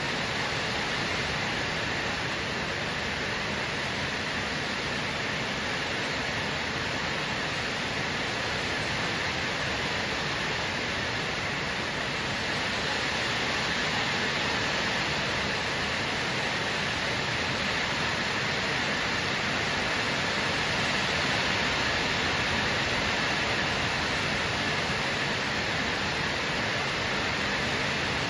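Heavy rain pouring down, a dense, even rush that holds steady throughout.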